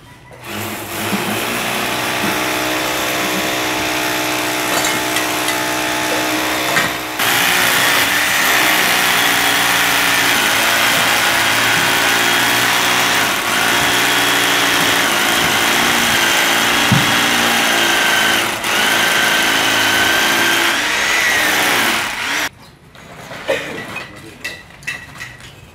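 A small motor running steadily and loudly, its sound shifting abruptly about seven seconds in and cutting off sharply near the end.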